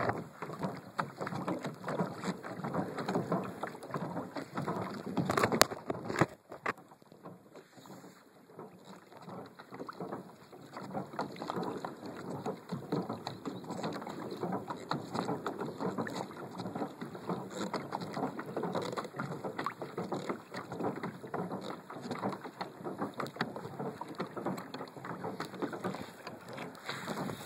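Water splashing and lapping against the hull of a Hobie Outback kayak under way, driven by its pedal drive, with wind on the microphone. A few sharp knocks come about six seconds in, followed by a few quieter seconds before the splashing picks up again.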